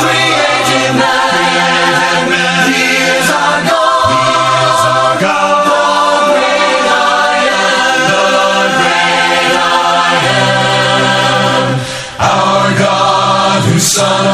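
Choir singing a hymn unaccompanied, in several parts, with a short pause for breath about twelve seconds in.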